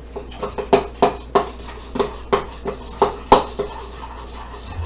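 Spoon clinking and scraping against a stainless steel mixing bowl while stirring a thick, gluey paste, with sharp irregular clinks about three times a second; the loudest comes a little past the middle.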